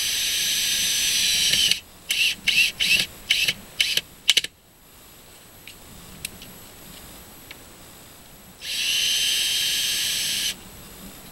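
Cordless drill/driver working screws in a wooden coop door's hinge: a steady run of about two seconds, then about seven short trigger bursts, then a second run of about two seconds near the end. The short screws are being swapped for longer ones driven through the hinge into the backer board.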